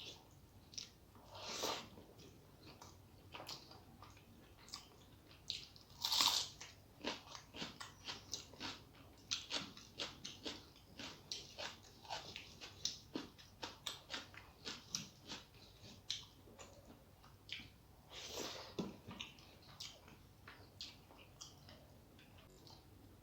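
Close-miked chewing of a rice-and-curry meal: wet mouth clicks and smacks, running at about two to three chews a second in the middle stretch. There are three louder, longer wet smacks, about a second and a half in, about six seconds in, and about eighteen seconds in.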